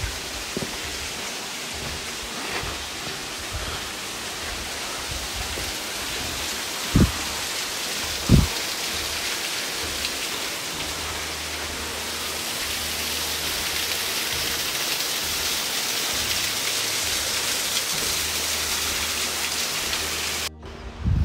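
Steady hiss of falling water, swelling slightly in the second half, with two dull thumps a second and a half apart about a third of the way in. It cuts off suddenly near the end.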